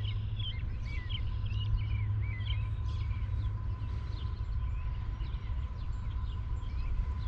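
Small birds chirping repeatedly, busiest in the first few seconds and then thinning out, over a steady low rumble.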